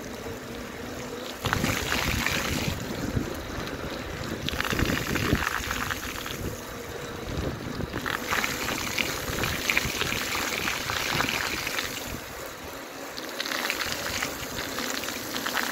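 Bicycle tyres rolling through water on a wet road: a steady hissing wash of spray that swells into louder splashing spells several times.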